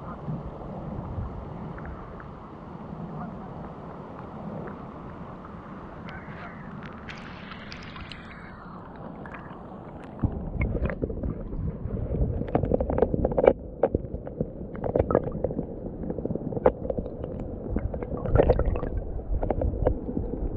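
River water running over rocks, heard from a camera at the surface, with a brief hiss partway through; about ten seconds in the camera goes under and the sound turns to a louder, muffled underwater rumble with scattered clicks and knocks.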